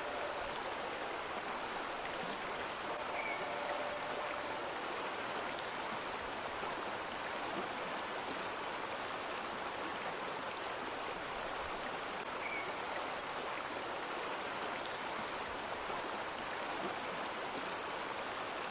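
Steady rushing of flowing water, with two faint brief chirps, one a few seconds in and one about twelve seconds in.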